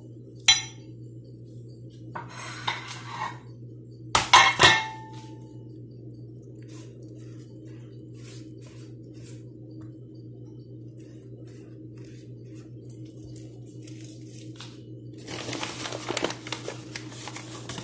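Kitchenware clinking against a metal baking tray as cooking oil is spread over pide dough: a sharp clink about half a second in, a loud clattering clink with a brief ring about four seconds in, faint scattered taps, then a rustling, scraping spell near the end. A steady low hum runs underneath.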